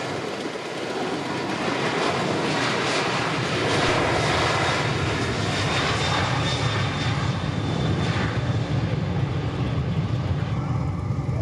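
A passing airliner's engines make a rushing noise that swells about four seconds in. It then settles into a deeper rumble as the higher hiss fades near the end.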